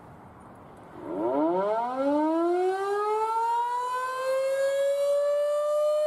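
Emergency warning siren winding up. After a faint hiss, it starts low about a second in and rises in pitch, quickly at first and then more slowly, toward a steady wail.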